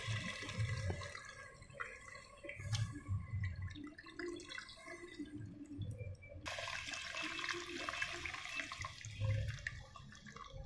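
Tamarind water pouring and splashing into a clay pot of fried onions and tomatoes, then dripping and trickling as a hand squeezes the tamarind pulp over the pot, with many small drips and splashes, busier again from about six and a half seconds in.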